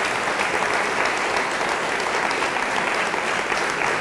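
Audience in a hall applauding, a steady dense clapping.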